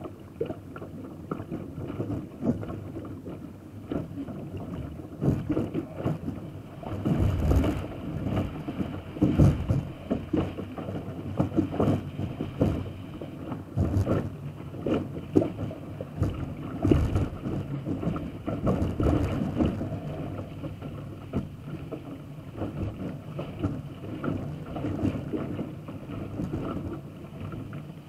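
Water rushing along and slapping against the hull of a Lightning sailing dinghy sailing fast through choppy water, with irregular louder splashes every second or two as the bow hits waves.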